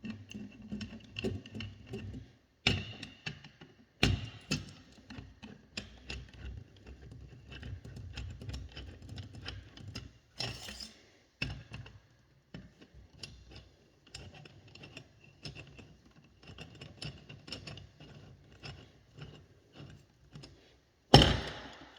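Metal screws on a garbage disposal's mounting assembly being loosened, with steady small clicking and ticking from the tool and metal parts, a few sharper clacks, the loudest near the end.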